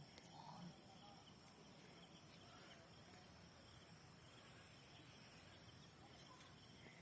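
Faint, steady high-pitched trilling of insects, like crickets, running without a break.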